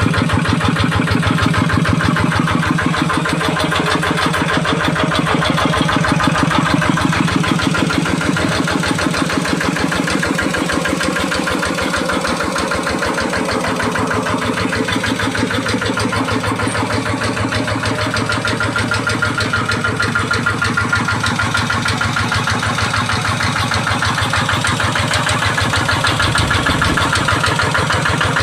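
G1000 Boxer hand tractor's Kubota diesel engine running steadily at idle, with an even firing rhythm.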